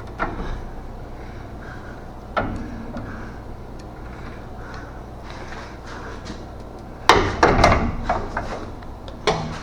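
Hand tools knocking and clanking against a car's front suspension parts: a couple of single knocks, then a quick run of several knocks about seven seconds in and one more near the end, over a steady low hum.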